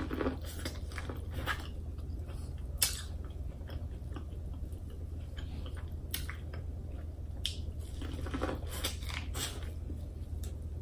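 A person biting kernels off a cob of boiled corn and chewing them, with short irregular clicks and crunches.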